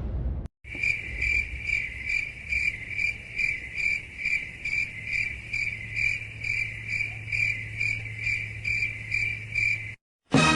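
Cricket chirping sound effect: a steady, even run of high chirps, about three a second, that starts and stops abruptly.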